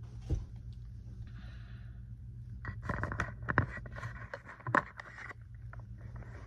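Handling noise as a 3D-printed plastic cockpit section is picked up and carried: scraping and rustling with scattered clicks and two sharper knocks in the middle, over a steady low hum.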